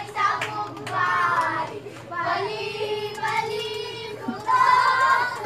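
High-pitched children's voices singing out in drawn-out notes, loudest near the end.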